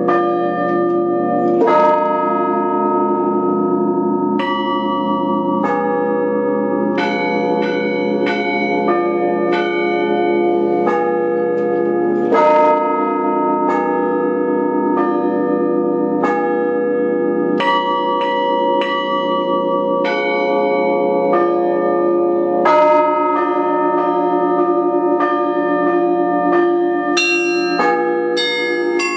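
Russian Orthodox church bells rung by a single bell-ringer. Small and middle bells are struck in quick, continuous succession over the sustained hum of the larger bells. About every ten seconds comes a heavier stroke of the biggest bell.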